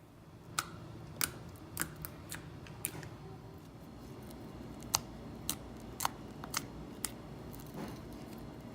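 Sticky clear slime being mixed and stretched by hand, giving a string of sharp, irregular clicks and pops, at times about two a second.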